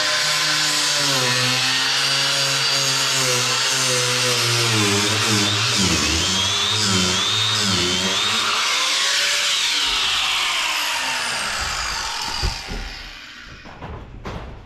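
Die grinder cutting burnt fiberglass, its motor pitch dipping and wavering as the wheel bites under load. About ten seconds in it is lifted off and spins down with a falling whine, followed by a few knocks.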